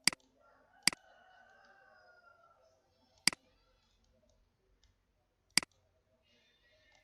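Computer mouse clicking: single sharp clicks, about four in all, spaced a second or two apart.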